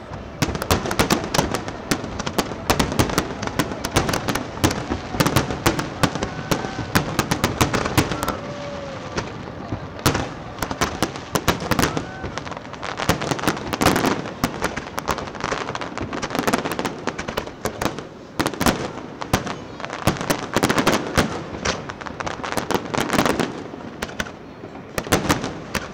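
Aerial fireworks display: a continuous run of shells bursting in rapid, overlapping bangs and crackles, several a second with no pause.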